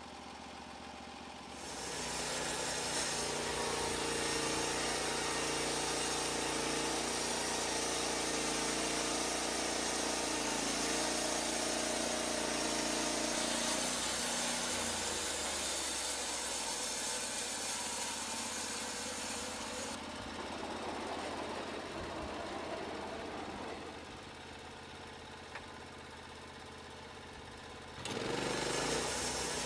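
Portable bandsaw sawmill running: a steady engine drone with mechanical noise. It grows louder about a second and a half in, drops back twice in the later part, and rises again near the end.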